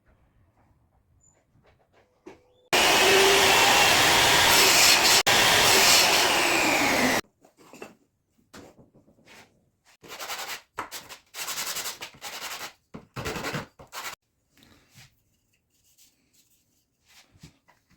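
A power tool runs loudly for about four and a half seconds, then cuts off suddenly. After it come a series of short rubbing strokes on wood.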